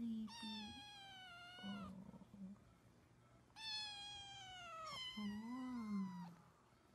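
Kitten meowing: three long, high-pitched meows, each sliding down in pitch, the last one wavering. A short low hum comes and goes underneath.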